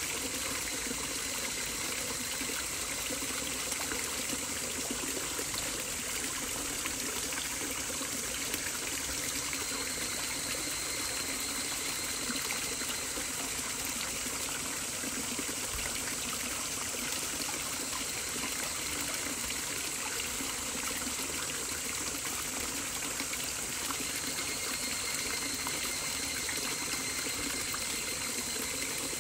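Steady sound of flowing water, a stream trickling and gushing without a break.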